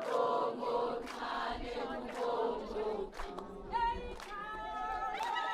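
A group of voices singing together unaccompanied in choir style, with a sharp beat about once a second.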